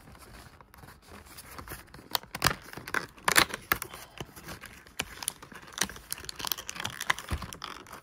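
Cardboard advent calendar door being picked and torn open by fingernails, with the thin plastic treat tray behind it crinkling: a run of irregular crackles and tearing, loudest between about two and a half and three and a half seconds in.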